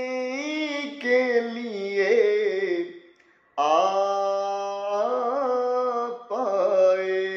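A man singing an Urdu naat alone, with no instruments, drawing out long ornamented notes that waver and bend in pitch. He breaks off briefly about three seconds in, then carries on.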